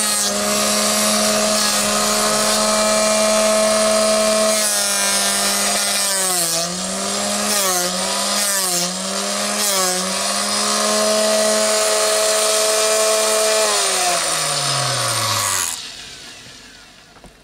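Proxxon BSG 220 drill sharpener's motor running with a steady hum while its grinding wheel grinds the cutting edge of a twist drill. The hum's pitch dips briefly four times as the drill is swept against the wheel. About fourteen seconds in, the motor is switched off and winds down, falling in pitch.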